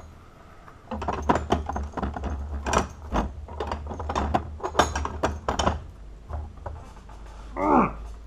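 Metal clanking and knocking, a quick irregular string of sharp hits, as a hardened-steel padlock is handled and repositioned in a holding rig, over a low steady hum. A short falling whine comes near the end.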